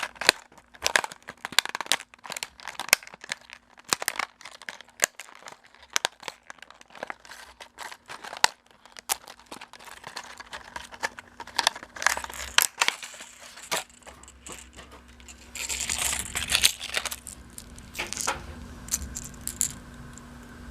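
Plastic fishing-lure packaging crinkling and being torn open, with many small sharp clicks as it is handled; a denser stretch of rustling comes about three quarters of the way through.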